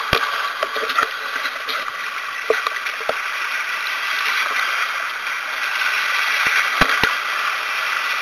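Sea waves washing and splashing over shoreline rocks: a steady rush of water with a few sharp clicks and pops scattered through it.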